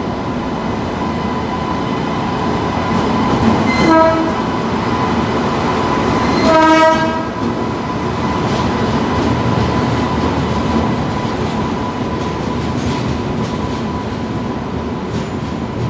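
Express train hauled by an electric locomotive rolling into a station platform, with a steady rumble of wheels on the rails. A train horn gives a short blast about four seconds in. About six and a half seconds in comes a longer, louder blast of roughly a second.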